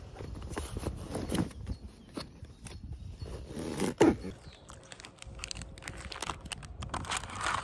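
A cardboard carton of foil drink pouches and snack packets rustling, crinkling and knocking as they are handled and pulled out of a backpack, with one louder knock about four seconds in.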